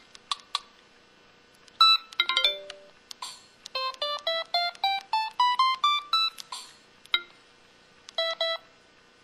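Built-in sound effects of a Samsung SPH-X9300 mobile phone played one after another: short electronic beeps and chimes with gaps between them, including a quick rising run of notes about four to six seconds in.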